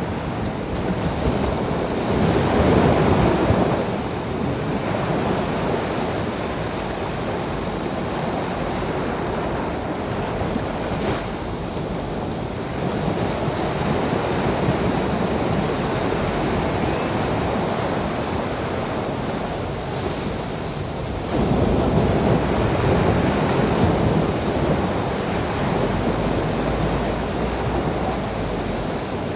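Sea surf: waves washing in a continuous rush, swelling louder about three seconds in and again with a sudden rise about two-thirds of the way through.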